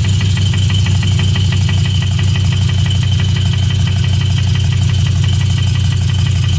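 GM LQ4 6.0-litre V8 running steadily, with a fast, even ticking over the engine note, which the owner takes for an engine knock.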